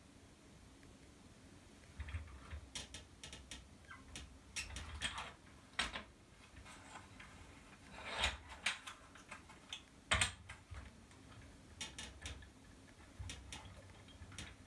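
Irregular clicks and light knocks of hard plastic being handled: the body of a Bruder John Deere 9620RX model tractor turned over and worked by hand while its motor wires are threaded through.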